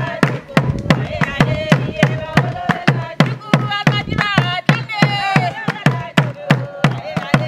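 Women singing a traditional song over a quick, steady beat on a tall wooden drum, with hand claps.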